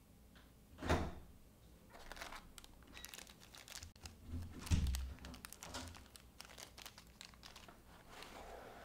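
A small clear plastic bag of screws crinkling as it is handled, among short handling knocks; the loudest knock comes about a second in, with a dull thump near the middle.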